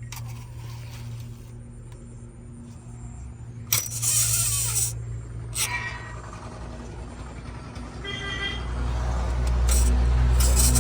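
Diesel engine of heavy earthmoving machinery running steadily. About four seconds in there is a loud burst of rushing noise lasting about a second. Near the end the engine grows louder, as if revved under load.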